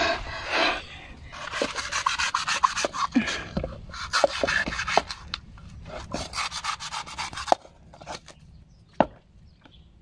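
A cleaver shaving and scraping the fibrous husk off a coconut on a wooden chopping block: rapid rasping strokes with sharp knocks of the blade. It eases off about seven and a half seconds in, followed by a single sharp knock near the end.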